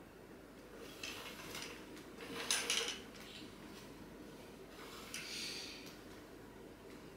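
Heavy curtains being drawn back along their rail: three short scraping swishes, the loudest about two and a half seconds in.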